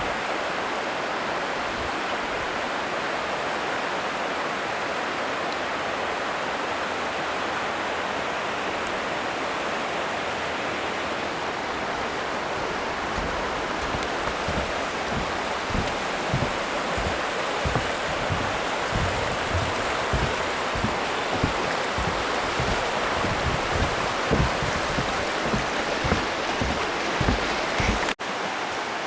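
A river rushing steadily over rocks. From about halfway through, low regular thumps of walking footsteps, about two a second, join the rush of the water.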